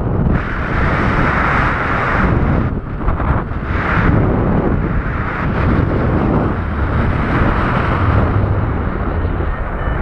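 Wind rushing over the camera microphone of a paraglider in flight, loud and gusting, swelling and dipping every second or two.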